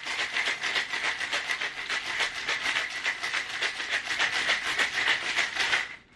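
Cocktail shaker being shaken hard to chill a Cosmopolitan: ice rattling against the shaker in a fast, steady rhythm of several strokes a second. The shaking stops suddenly near the end.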